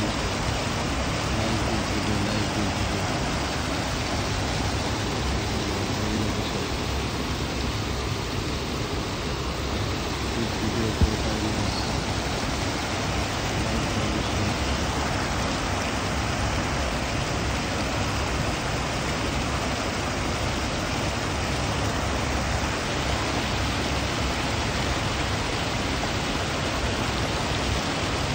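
Steady rush of water pouring over the steps of a concrete weir and churning white below, with one brief sharp knock about eleven seconds in.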